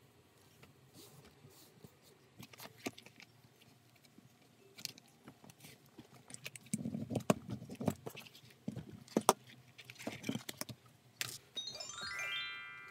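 Hands handling a leather bag panel and a metal zipper on a cutting mat: scattered light clicks, metallic jingles and rustles, busier in the middle. Near the end a short chime-like run of notes rising in pitch.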